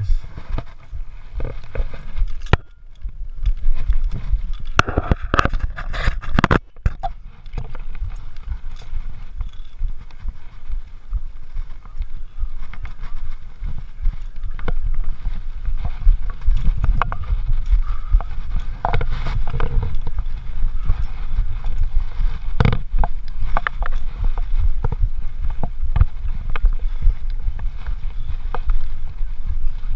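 Low, steady rumble of wind buffeting the microphone, with scattered knocks and scrapes of a climber's hands and feet on a wooden climbing wall with bolt-on holds.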